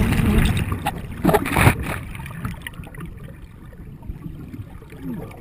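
Handling noise of a camera's microphone muffled against and rubbing on fabric: a loud low rumble that fades away, with two knocks about a second and a half in.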